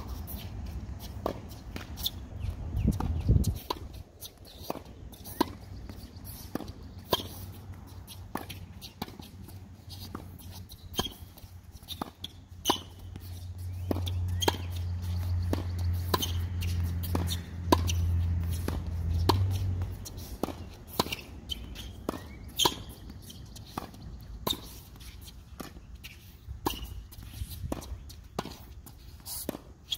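A tennis rally on a hard court: repeated sharp pops of the ball coming off strings and bouncing on the court surface, a second or so apart. A low steady hum rises for several seconds in the middle and then fades.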